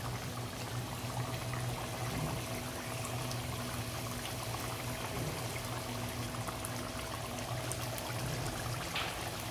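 Thick chicken curry gravy bubbling as it simmers in a metal pot, a continuous wet bubbling with many small pops, over a steady low hum.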